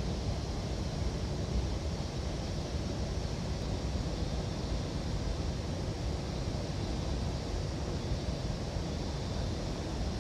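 Steady rushing of a mountain stream, an even wash of water noise with no distinct events.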